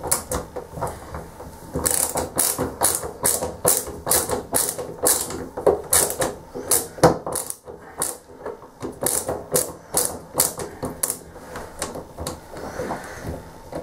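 Screwdriver working a screw out of a chrome bath tap: a steady run of sharp metallic clicks, about two or three a second, that thins out near the end.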